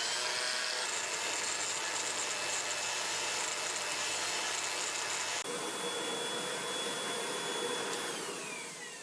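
An electric grinder's motor spins up with a rising whine and runs steadily, with a gritty hiss for about the first five seconds. It then runs free and winds down with a falling whine near the end.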